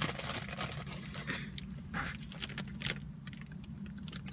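Clear plastic bag crinkling and rustling as it is picked up and handled, with scattered clicks and knocks, over a steady low hum.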